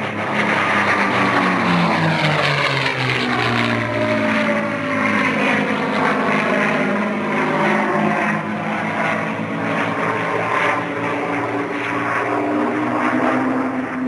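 Two P-51 Mustangs' V-12 piston engines running together in a formation pass, a propeller drone whose pitch falls over the first few seconds as they go by, then holds steady as they climb away.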